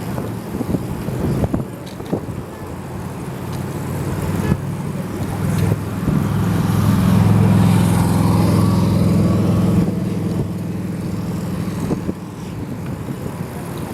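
A motor vehicle passing close by on the road, its engine hum and road noise growing louder to a peak about eight seconds in, then fading.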